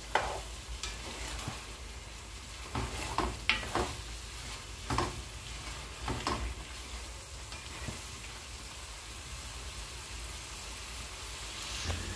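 Tripe curry sizzling in a kadhai as the last of its water cooks off, stirred with a spatula. Short scraping strokes against the pan come every second or so in the first half, then mostly the steady sizzle.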